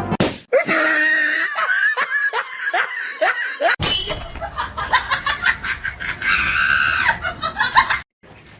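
Laughter and shrieks in short runs of falling cries, broken by abrupt cuts between clips.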